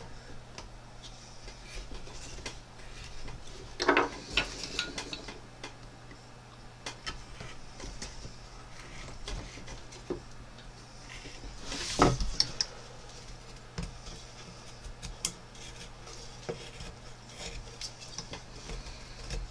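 Carving knife paring and cutting into a wooden spoon blank by hand: a run of small scraping cuts and clicks, with two louder, sharper cuts about four seconds in and about twelve seconds in.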